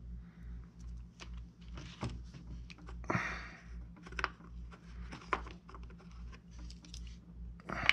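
Soft, scattered scrapes and taps of a hand working sculpting clay on a dog figure, over a steady low hum; a longer scrape comes about three seconds in and a sharper tap near the end.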